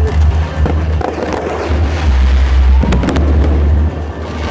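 Fireworks display bursting overhead: sharp bangs and crackling over a continuous low rumble, with a cluster of cracks near three seconds in.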